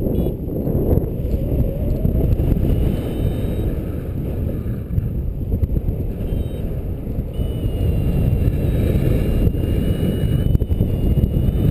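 Airflow buffeting the microphone of a camera on a paraglider in flight: a steady low rushing rumble that gusts up and down, with faint high tones that step in pitch in the second half.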